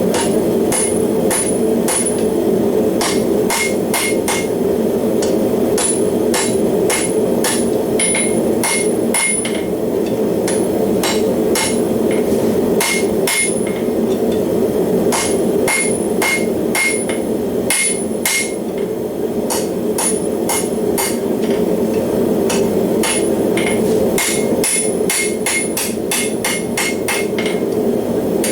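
Hand hammer striking hot steel bar on an anvil in runs of quick blows with short pauses, each blow ringing brightly, as the steel is forged into a pitching horseshoe. A forge runs steadily behind it.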